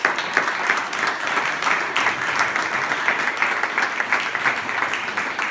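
Audience applauding, many people clapping densely and steadily.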